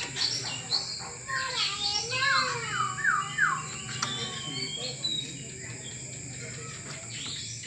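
Oriental magpie-robin (kacer) singing a run of clear whistled notes that slide up and down, with a quick series of repeated falling whistles about two to three seconds in, then sparser chirps. A steady high-pitched hum runs underneath.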